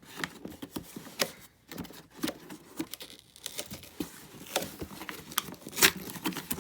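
A cardboard parcel and its packing being opened by hand: irregular crinkles, scrapes and small knocks, the sharpest crackle about six seconds in.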